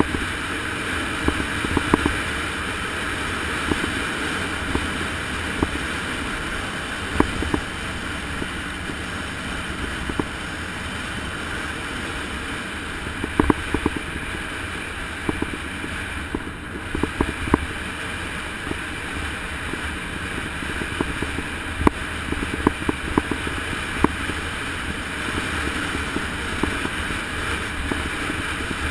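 Steady wind rush over a mounted camera's microphone during a fast mountain-road descent, with scattered short clicks and knocks as the mount jolts over the road surface.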